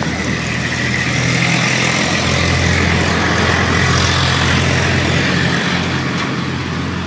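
A motor vehicle's engine running close by, a steady low hum with a rushing noise over it that grows louder about a second in and eases off near the end.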